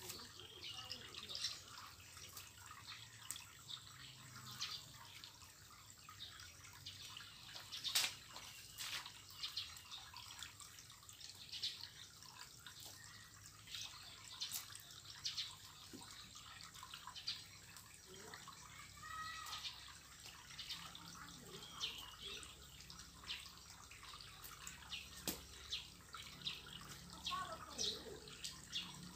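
Faint rustling and small snaps of weeds being pulled by hand from wet soil, in irregular short crackles.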